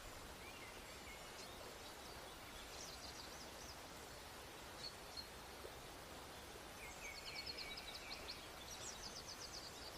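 Faint birdsong over a steady hiss: scattered short chirps, then a quick run of trilled chirps from about seven seconds in.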